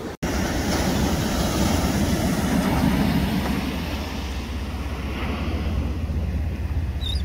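Wind buffeting the microphone over the steady wash of surf breaking on a sand beach. A single short, high seabird call sounds near the end.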